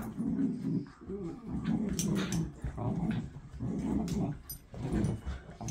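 Schnauzers growling in play while tugging on a rope toy: rough growls in repeated bursts of under a second each.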